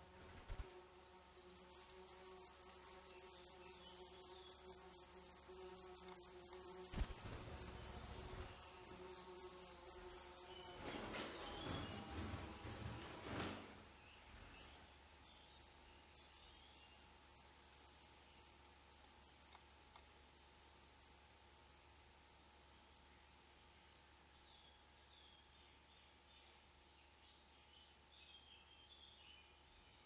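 Black redstart nestlings begging: a rapid series of thin, high-pitched calls that starts suddenly about a second in, then grows fainter and sparser through the second half until only scattered calls remain.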